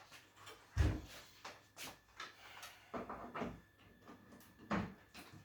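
Irregular knocks and clatters of parts being handled, with the loudest thump about a second in and another near the end.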